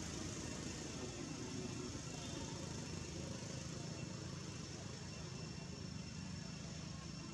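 Steady low rumble of distant road traffic, with a faint steady high whine over it.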